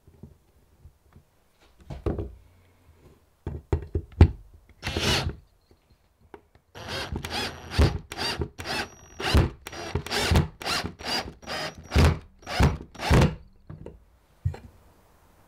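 Cordless drill driving a screw through a metal shelf bracket into the wall, running in a string of short start-stop bursts from about seven seconds in. Before that come a few knocks and one brief burst of the drill.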